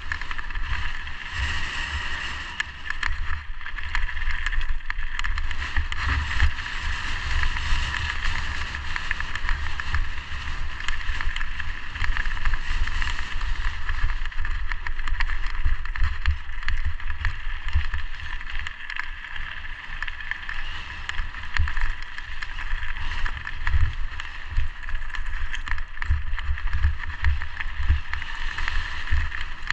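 Mountain bike ridden fast down a loose rocky trail: wind rushing over the helmet camera's microphone and tyres rolling over stones, with frequent short knocks and rattles from the bike over bumps.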